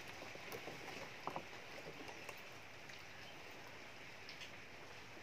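Quiet, steady outdoor hiss with a scatter of light clicks and taps as hands work a fishing hook and line over a bait bucket, mostly in the first half.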